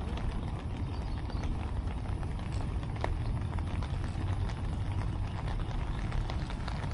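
Wind buffeting the microphone in a steady low rumble, with scattered light clicks and taps.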